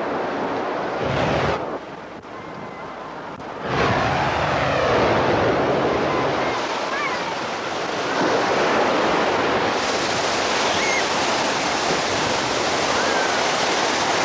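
Ocean surf: waves breaking and washing in as a steady rushing noise, which dips briefly about two seconds in and then swells back louder and holds.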